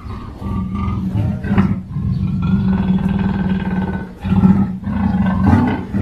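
Big cat growling: a low, rumbling growl that breaks off briefly about two seconds and four seconds in.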